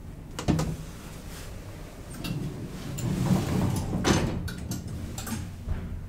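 Click of an elevator car button being pressed, then the doors of a 1992 Schindler elevator sliding shut, ending in a clunk about four seconds in. A few light clicks and a soft thump follow.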